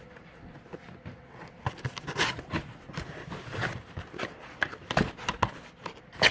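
Fishing-rod packaging being handled: irregular rustling and scraping with scattered clicks and knocks, and one sharper knock near the end.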